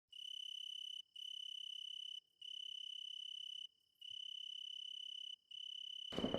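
Cricket chirping in a fast, even trill, faint and high-pitched, coming in five stretches with short breaks between them.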